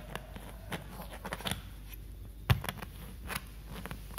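Clothes rustling and small handling clicks, with one sharp knock about two and a half seconds in, over a low steady hum.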